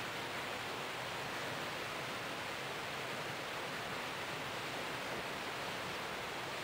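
Steady, even rushing noise aboard a moving boat on a lake, water and wind streaming past. It holds constant, with no engine tone or separate splashes standing out.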